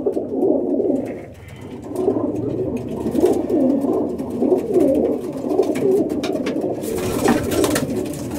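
Racing pigeons cooing continuously in a small loft, a steady overlapping low wavering sound, with a brief rustle about seven seconds in.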